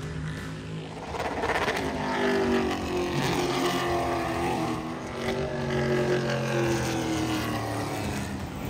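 Race car engines running on a short oval track, one engine note climbing about a second in and then sliding slowly lower.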